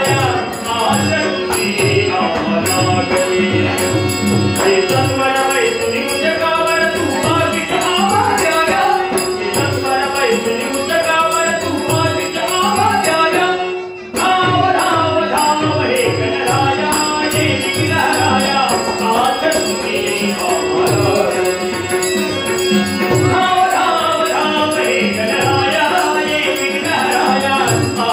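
Harmonium melody over a held drone, with pakhawaj drum strokes and small hand cymbals keeping time: traditional Dashavatar folk-theatre accompaniment. About halfway through the music drops out for a moment and comes straight back in.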